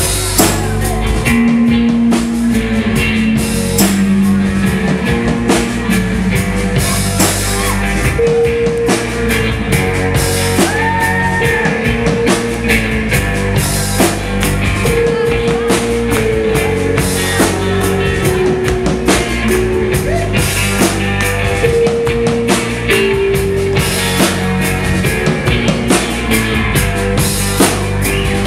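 Live indie rock band playing, with guitars and a drum kit.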